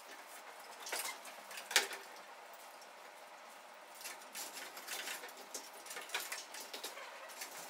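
Scattered light clicks and rustles of hands handling installation materials overhead, with one sharper click about two seconds in and a busier run of small clicks in the second half.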